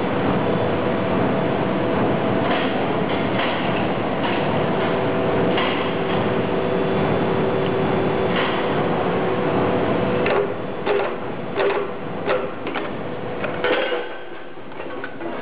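Automatic lead casting machine for car battery parts running, with a steady mechanical hum carrying a few held tones. About two-thirds through, a quick run of clicks and knocks starts as the mould plates move, and near the end the low hum drops away.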